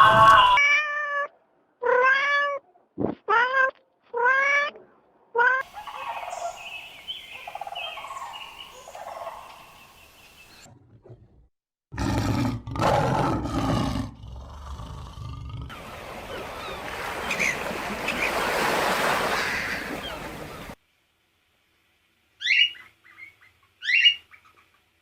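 A run of puppy sounds: about five short whines, each rising then falling in pitch, then softer whimpering, a louder rough passage of barking or growling about halfway through, a stretch of breathy hiss-like noise, and two short high squeaks near the end.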